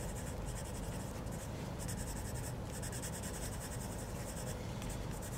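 Coloured pencil (Prismacolor) scratching on paper in short repeated strokes, laid on with light pressure.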